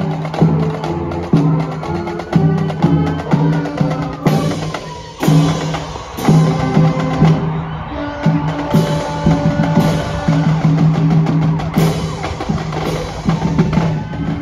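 Marching band playing: brass with sousaphones holding low notes over a drumline's steady beat, with sharp strikes about once a second through the middle.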